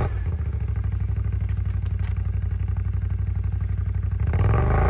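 A quad bike's engine running at low throttle with an even, fast pulse, then revving up about four seconds in as it is worked forward through deep snow.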